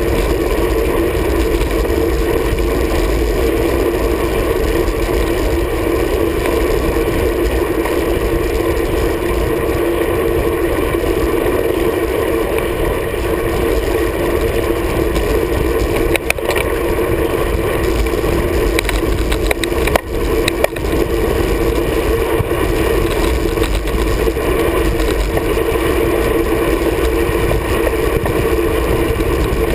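Steady wind rush and road rumble on a road bike's handlebar-mounted action camera while riding, with a few sharp clicks and knocks in the second half.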